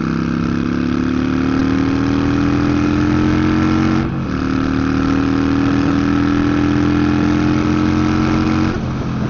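Harley-Davidson Sportster Iron 883 air-cooled V-twin with short shot exhaust, accelerating under way. Its pitch climbs steadily, dips briefly at an upshift about four seconds in, climbs again, and drops near the end as the throttle is eased off or the next gear is taken.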